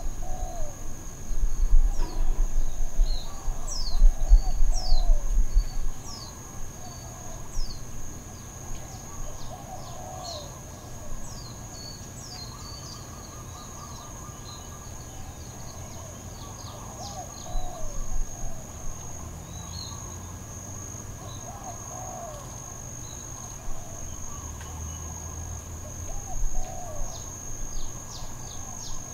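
Outdoor ambience: a steady high-pitched insect drone with many short bird chirps scattered through it, and a low rumbling noise with louder bumps during the first several seconds. No clear dog barking stands out.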